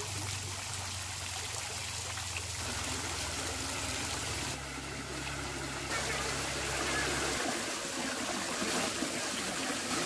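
Water from a swimming pool's water features running and splashing steadily, louder from about six seconds in as the artificial rock waterfall pours into the pool. A low hum underneath stops about seven seconds in.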